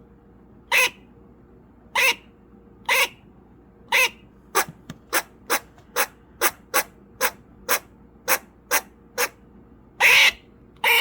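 Eastern grey squirrel barking in alarm at crows: a series of short, sharp calls, about one a second at first, quickening to about three a second, then a longer, louder call near the end.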